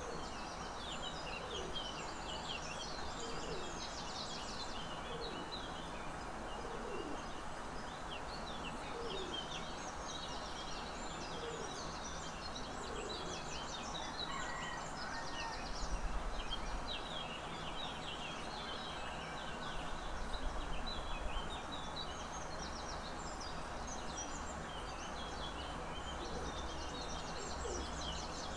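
Outdoor birdsong: many short, high chirps keep going throughout, with a low, falling hoot-like call recurring every few seconds. Two brief low rumbles come about halfway through and again a few seconds later.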